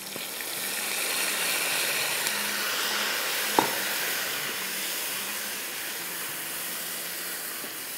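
Chopped tomatoes sizzling as they hit hot oil in a frying pan of chicken and browned onion. The steady hiss swells over the first couple of seconds and slowly eases off, with one sharp click a little before halfway.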